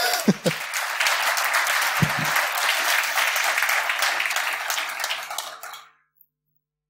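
Audience applauding, a dense patter of many hands clapping that dies away about six seconds in.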